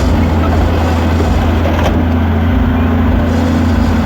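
A large engine running steadily with a deep, even hum. A single sharp crack a little under two seconds in.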